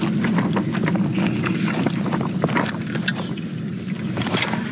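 Footsteps and rustling through grass and brush, with irregular clicks over a low steady rumble; about four seconds in, a quick swish as a baitcasting rod is cast.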